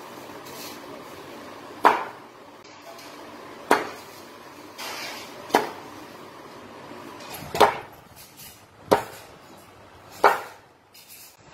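Heavy knife chopping raw green mangoes on a wooden board: six sharp chops, one every one and a half to two seconds.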